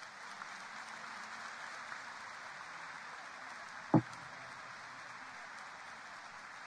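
Audience applauding steadily after a talk, with a single thump about four seconds in.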